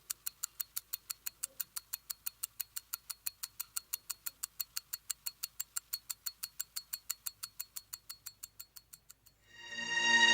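Mechanical watch ticking steadily at about five ticks a second, the ticks fading away near the end. A musical swell rises in just before the end.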